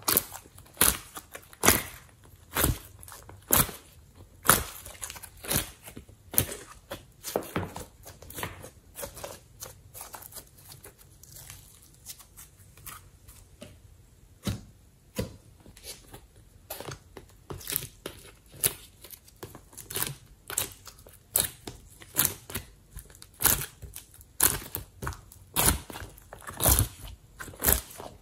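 Soft slime being squeezed and kneaded by hand, giving a string of sharp sticky pops and clicks, roughly one a second, fewer and quieter in the middle.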